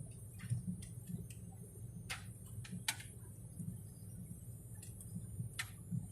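Steady low drone of an airliner cabin in flight, with irregular light clicks and ticks scattered through it.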